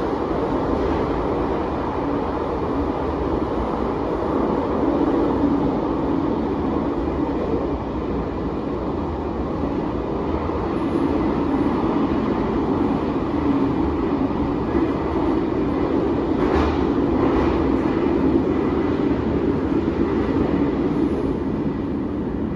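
CAF-built Bucharest Metro train running through a tunnel, heard from inside the car: a steady rumble of wheels on rails. A few short clicks come about two thirds of the way in.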